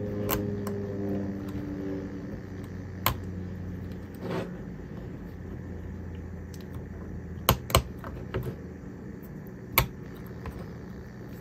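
Fingers pressing a small video transmitter board down onto a micro FPV drone's flight controller stack and standoff screws, making a handful of sharp little clicks and taps spaced a few seconds apart, over a steady low hum.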